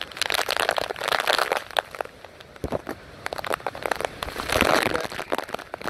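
Hurricane wind and heavy rain crackling and buffeting against the microphone, swelling in two gusts, about a second in and again near the end.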